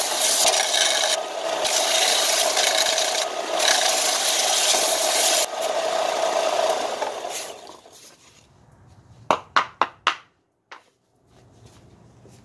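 Bench belt sander running, with a round pallet-wood wheel pressed flat against the belt: a loud abrasive grinding over a steady motor hum. About seven and a half seconds in, the grinding stops and the sander runs down, followed by a few sharp knocks.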